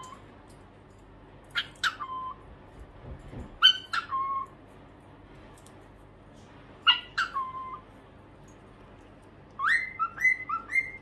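Cockatiels calling: three short calls a couple of seconds apart, each dropping sharply in pitch into a brief level note. Near the end comes a quick run of rising whistled notes.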